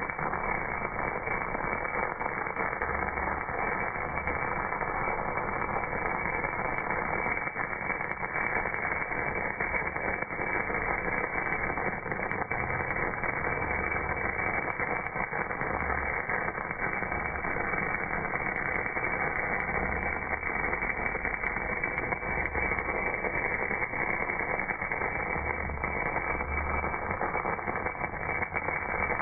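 MAG welding arc burning steadily on a cast part, its crackle slowed down by slow-motion playback so that it comes through as a dull, even hiss with no high end.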